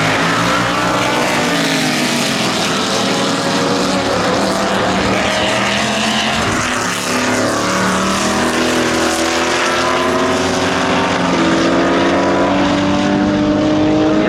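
Lola T70 Mk3B's Chevrolet V8 racing engine running hard at speed; its pitch sags around the middle, then climbs steadily over the last seven seconds as it accelerates.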